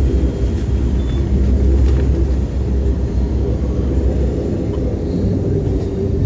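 Amtrak passenger train rolling along, heard from inside the car: a steady noise of wheels on rails and the moving car, mostly low in pitch.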